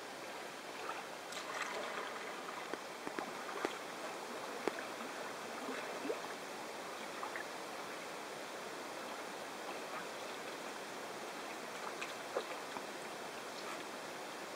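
Kayak paddle strokes in calm water: the blades dip and pull with small splashes and drips, and a few light ticks, over a steady wash of water noise.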